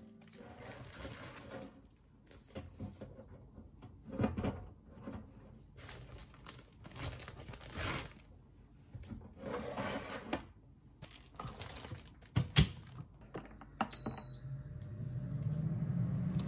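Stainless mesh basket scraping and clinking as it is slid into a countertop air fryer oven, with several knocks and one sharp knock as the oven door is shut. About 14 s in a short high beep sounds, and the oven starts running with a steady low fan hum.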